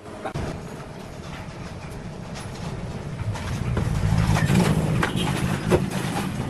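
A machine running with a steady low rumble and many irregular clicks and knocks, growing louder over the first few seconds.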